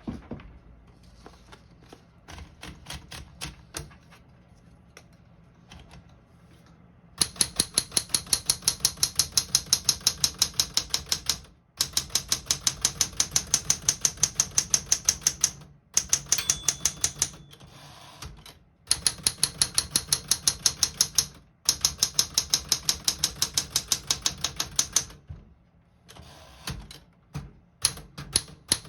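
Keys of a 1971 Smith-Corona Super Sterling manual portable typewriter being typed: light, quiet strokes for the first several seconds, then fast runs of loud, sharp type strikes, about seven a second, broken by short pauses.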